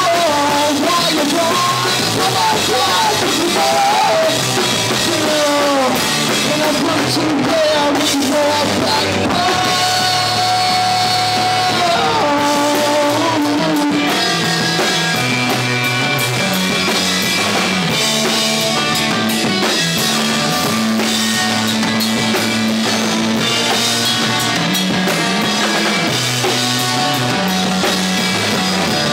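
Live rock band playing: drum kit and electric guitars, with a man singing over them.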